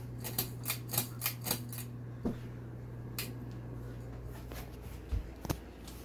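Monte Carlo Mini ceiling fan running with a steady low motor hum. A quick run of light clicks comes in the first two seconds, and a few single clicks follow later.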